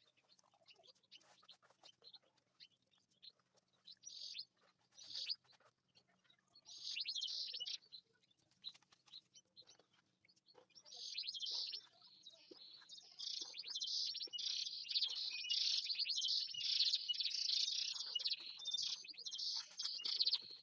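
Canary singing: short bursts of high, rapid warbling about four, five and seven seconds in, then a long unbroken song phrase through the second half.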